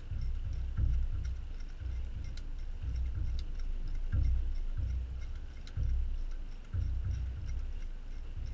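1/4-inch drive ratchet with a 7/16 deep socket being cranked on a turbo boot hose clamp: a low, dull thump about once a second with each stroke, with a few faint clicks.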